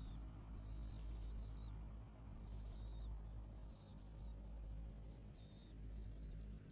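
Small bird chirping repeatedly, short high calls that slide down in pitch about once a second, over a steady low hum.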